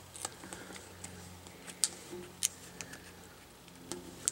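A handful of light, irregular clicks and ticks as a fingernail and the tip of a hobby knife pick at the adhesive tape covering a laptop LCD's cable connector.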